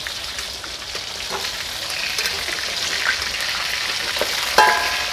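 Food sizzling in hot oil in a steel wok, with a metal spatula scraping and knocking against the pan as it is stirred. A short ring sounds near the end.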